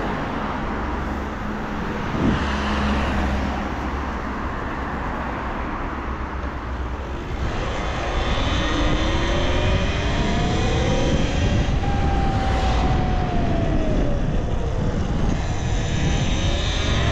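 Talaria Sting R electric dirt bike being ridden: a steady rush of wind and road noise, with the electric motor's whine rising in pitch as the bike speeds up from about eight seconds in, dropping back, then rising again near the end.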